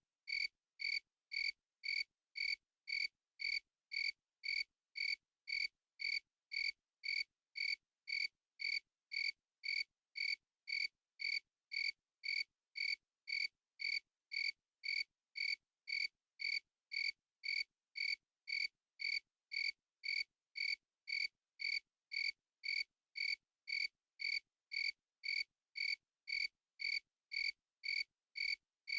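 A cricket chirping in a steady, even rhythm of about two short chirps a second, each chirp identical, with silence between them.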